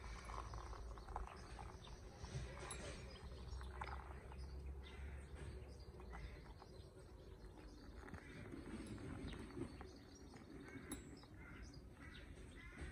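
Hot water trickling faintly in a thin stream from a small cooking pot into a steel camping mug of coffee, with birds chirping in the background.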